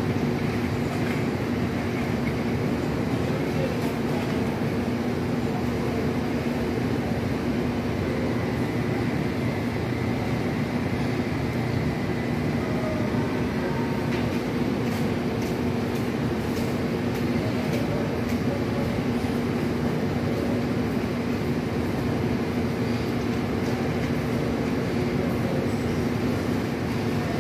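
A steady engine drone from heavy machinery running without a break, its pitch constant, with a few faint clicks partway through.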